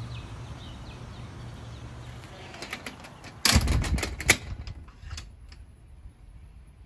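A door being unlatched and opened: a loud rattling burst of latch and handle clicks about three and a half seconds in, then a few fainter clicks. Before it, steady outdoor background with a low hum.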